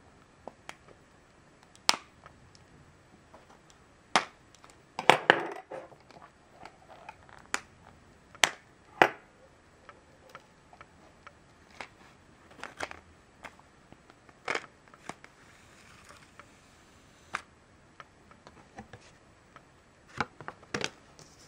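Clear plastic blister pack being pried off its cardboard backing card by hand: a scattered series of sharp plastic clicks and snaps, with a quick flurry of louder snaps about five seconds in.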